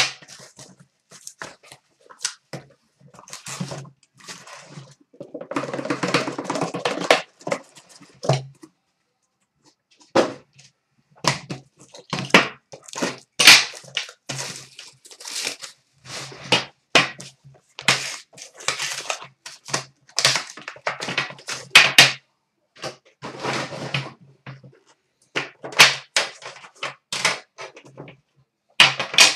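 Cardboard shipping case and boxed trading-card boxes handled on a glass counter: a long run of sharp knocks, taps and clicks as boxes are lifted out and set down, with a few seconds of rustling and scraping of cardboard about five seconds in.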